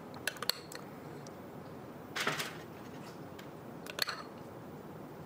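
Metal spoon clinking and scraping against a ceramic bowl while scooping thick yogurt mixture: a few light clinks in the first half-second, a longer scrape about two seconds in, and another clink about four seconds in.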